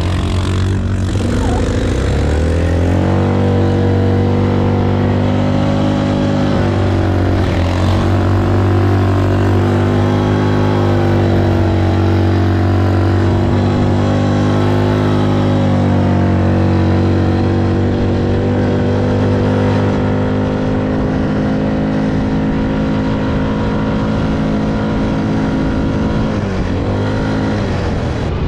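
ATV (quad bike) engine running under throttle. Its note climbs about two to three seconds in and then holds fairly steady, dipping and climbing again near the end.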